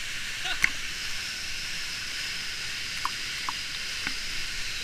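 Steady rushing of a waterfall, a continuous hiss of falling water, with a thin high steady tone joining about a second in and a few faint clicks.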